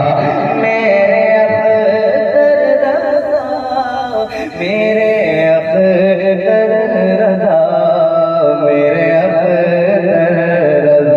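A man singing an Urdu naat, a devotional poem, solo into a PA microphone in long, drawn-out melodic lines. The singing dips briefly about four seconds in.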